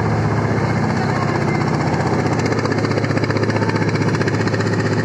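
Boat engine running steadily with a fast, even pulsing beat.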